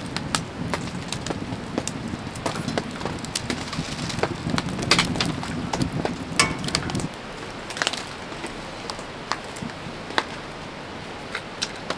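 Wood fire crackling in a small wood stove, with many scattered sharp pops. A low rumble under it stops about seven seconds in.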